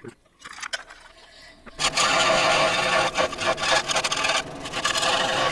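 Harbor Freight electric scroll saw cutting a wooden board, its blade making a steady rasping. The cutting noise starts loud about two seconds in, after a quieter moment.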